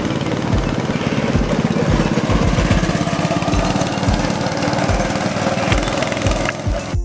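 A loud, rough, steady motor-like noise, with a regular low thump about twice a second from a music beat underneath. Clear musical notes come through right at the end as the noise drops away.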